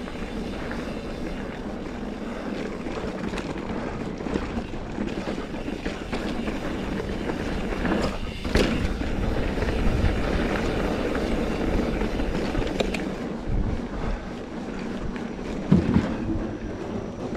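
Mountain bike rolling along a dirt trail: steady tyre noise with rattles and clicks from the bike over the ground, with wind rumble on the microphone. A sharp knock about eight seconds in and a couple of thumps near the end.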